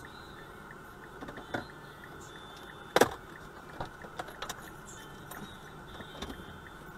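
Steady in-cabin road and engine noise of a car driving slowly, with scattered clicks and knocks inside the cabin and one sharp knock about three seconds in, the loudest sound.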